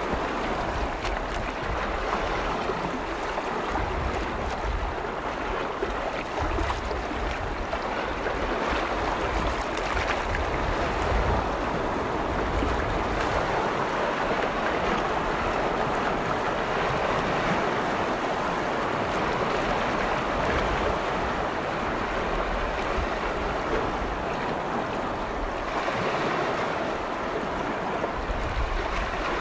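Freshwater lake waves washing against the shore in a steady wash of water, with wind buffeting the microphone now and then.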